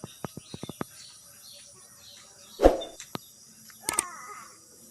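Sharp clicks and taps with a few bird chirps, and one louder noise a little past the middle.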